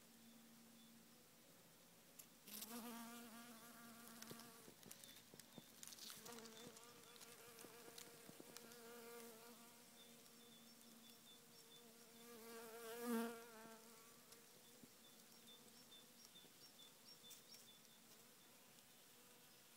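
A honeybee's faint wing buzz, working a crocus flower and flying about. It comes in several bouts that swell and fade, the loudest about two-thirds of the way through.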